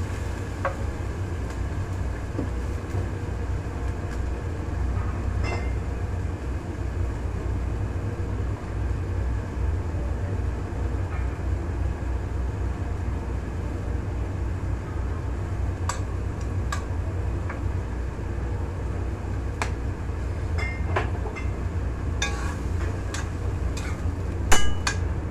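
Minced pork cooking in soy sauce and water in a pan over a gas burner: a steady low rumbling hiss, with scattered clicks and scrapes of a wooden spatula against the pan, most of them near the end.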